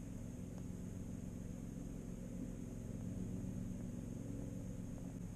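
Steady muffled underwater rumble and hum picked up by a camera submerged in a pond, with a faint high whine throughout and a few faint clicks.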